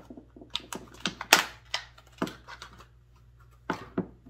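About a dozen hard, sharp clicks and clacks from a screwdriver bit-and-driver set being handled, its driver and fittings knocking and snapping, the loudest about a third of the way in.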